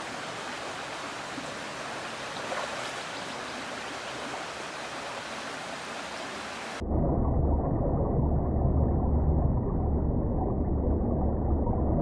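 Shallow river rushing over stones, a steady even hiss. About seven seconds in it cuts abruptly to a louder, muffled low rumble of water, as heard by a camera under the water.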